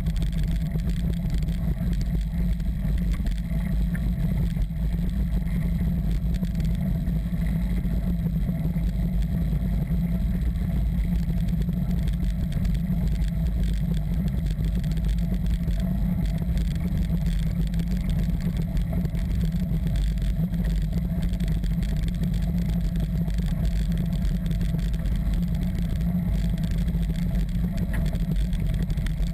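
Steady low rumble of wind buffeting and tyres rolling over gravel, picked up by a bike-mounted action camera on a moving mountain bike.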